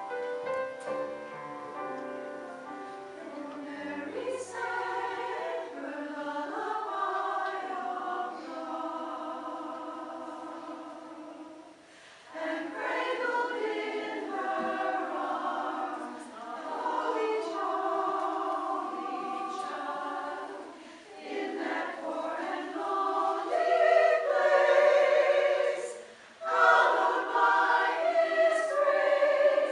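Mixed choir singing in harmony, in phrases broken by short pauses about twelve, twenty-one and twenty-six seconds in.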